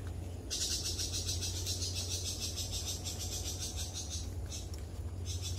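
Insects trilling in a fast, even pulsing chirr that starts about half a second in, breaks off around four seconds in and picks up again near the end, over a steady low rumble.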